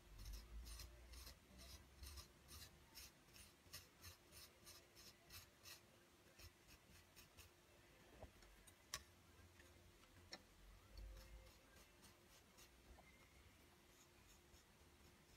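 Faint scratching strokes of a sculpting tool carving into grogged stoneware clay, about three a second at first, then slower and sparser, with one sharper click about nine seconds in.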